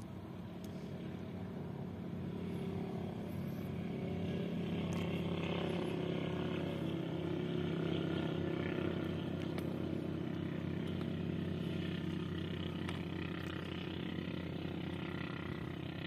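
An engine running steadily with a low hum, growing louder over the first several seconds and then slowly easing off.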